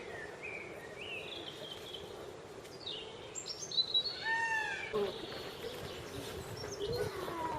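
Birds calling: scattered short chirps and gliding whistled notes, with a denser run of quick arched calls about four seconds in.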